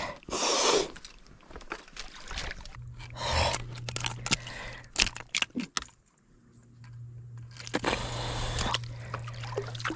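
Metallic clinking and scraping, with rustling and irregular sharp clicks, from handling a freshly caught pike and the lure. A steady low hum comes in about three seconds in, cuts out briefly around the middle, and then continues.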